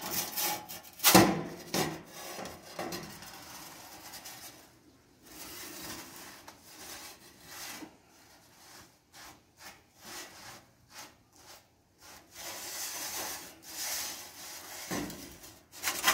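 Slotted metal pizza peel scraping over a pizza stone and knocking against the oven's metal mouth as a pizza is slid out, turned and pushed back in. There are a few sharp clanks near the start, then intermittent rasping scrapes and a run of quick clicks at the end.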